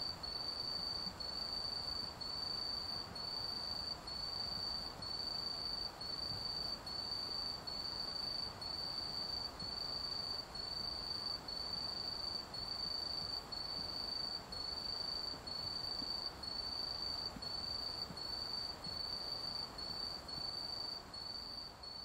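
A cricket singing at night: a high, steady trill broken into long notes about once a second, over a faint background hum.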